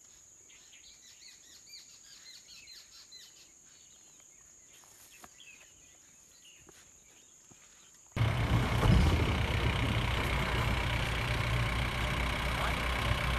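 Faint birds chirping over a steady high-pitched tone. About eight seconds in this cuts abruptly to the much louder, steady engine of an open-top safari jeep running as it drives slowly up a dirt track.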